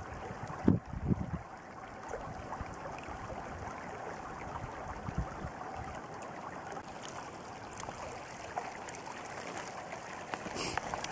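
Shallow mountain creek running steadily over a gravel and pebble bed. A couple of low bumps come about a second in, and a brief rustle near the end.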